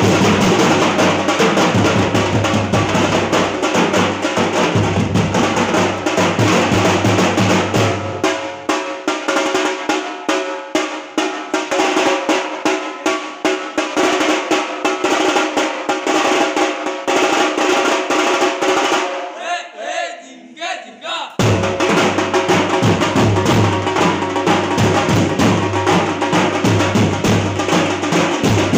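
Music with rapid, driving drumming. The bass drops away about a third of the way in, the music almost breaks off briefly about two thirds of the way through, then comes back in full.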